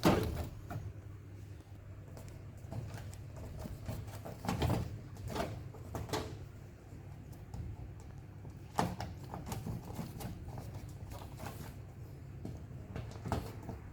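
Scattered clicks and knocks of the drain hose's securing clip being fitted back in place inside a front-load washing machine, hands handling the clip and hose.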